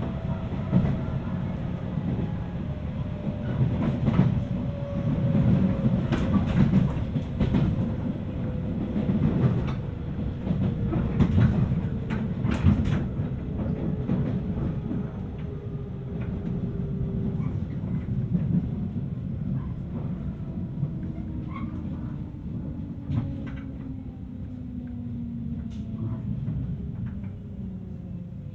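On board a 719 series AC electric multiple unit: a low running rumble with scattered rail clicks, and a thin motor whine that slides steadily down in pitch as the train slows, easing off toward the end. This jet-like whine is what the recordist flags as an unusual noise, unsure whether it is simply normal for the 719.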